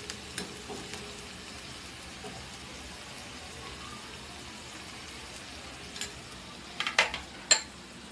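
Diced bell peppers and corn sizzling steadily in an oiled frying pan as salsa sauce is spooned in. A few sharp clinks of the spoon on the bowl and pan stand out near the end, the loudest sounds.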